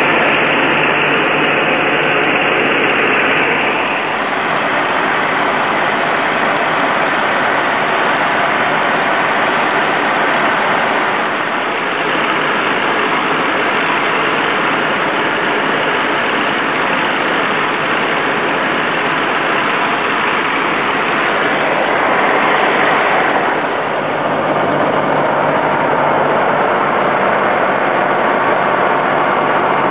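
Curtiss P-40 fighter's piston engine and rushing airflow heard from inside the cockpit: a loud, steady, dense noise that changes in tone about four seconds in and again about two-thirds of the way through, as the aircraft comes down low over the runway.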